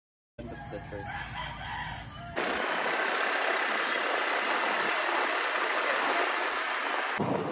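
Wind rushing over the microphone with road noise on a moving motor scooter: a steady loud hiss that starts suddenly a couple of seconds in and cuts off just before the end.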